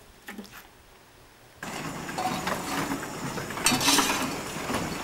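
Quarry Hunslet narrow-gauge steam locomotives in steam: faint at first, then a second and a half in a loud, steady hiss of escaping steam, surging louder about four seconds in.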